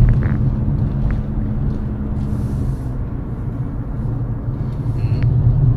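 Engine and road noise inside the cabin of a Chery Tiggo 5x SUV driving a winding hill road: a steady low rumble, with a faint hum that fades out about two and a half seconds in.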